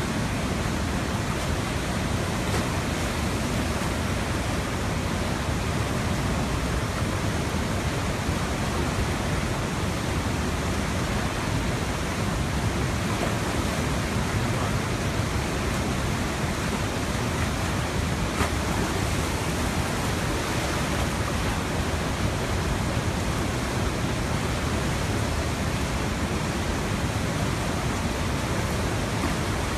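A river in flood after bursting its banks, its fast muddy water rushing as one steady, unbroken torrent.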